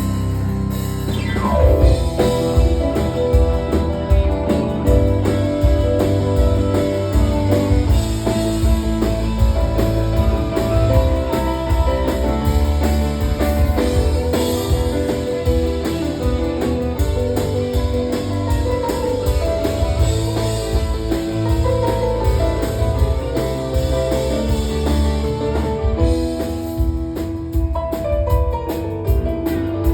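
Rock band playing an instrumental break between verses: guitar and a steady drum-kit beat, with no singing.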